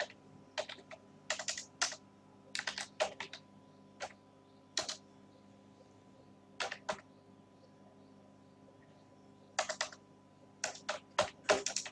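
Typing on a computer keyboard: irregular short runs of key clicks, with a pause of about four seconds in the middle before the typing picks up again.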